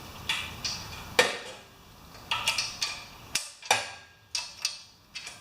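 Light metallic clinks and taps of hand tools and small engine parts being handled, about ten sharp clicks at uneven intervals.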